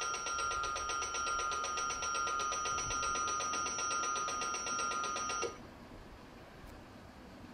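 Railway electric warning bell ringing rapidly and steadily, over a low rumble from the passing train. The bell cuts off suddenly about five and a half seconds in, leaving only the faint rumble.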